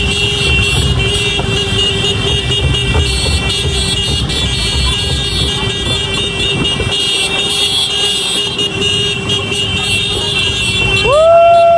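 Vehicle running with a steady drone and road noise. Near the end a vehicle horn sounds one long, loud blast.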